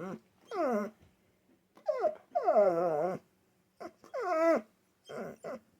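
A dog making a series of about five drawn-out, whining, word-like vocalizations, each falling in pitch, the longest near the middle. It is the dog's trained attempt at a spoken word in answer to a question, which the owner hears as 'armadillo'.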